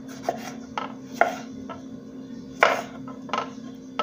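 Kitchen knife cutting tomatoes on a wooden cutting board: about six irregular knocks as the blade meets the board, the loudest a little over a second in and again past the middle.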